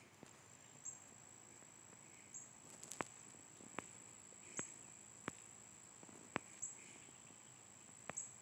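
Faint room tone: a steady high-pitched whine with about six sharp clicks, roughly a second apart, in the second half.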